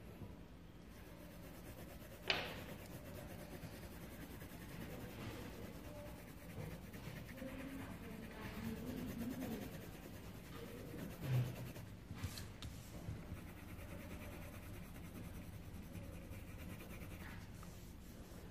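Coloured pencil scratching steadily across paper as a drawing is shaded in. A sharp click about two seconds in and a dull thump around the middle.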